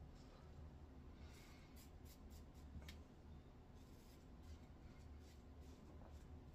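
Faint, quick scraping strokes of a double-edge safety razor cutting stubble, in two short runs of several strokes each, over a low steady hum.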